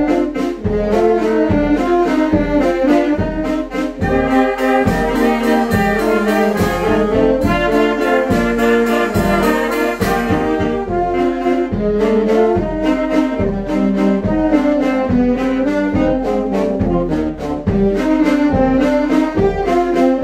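Children's brass band playing: massed brass carrying a melody over a steady beat of low bass notes and regular percussive strokes.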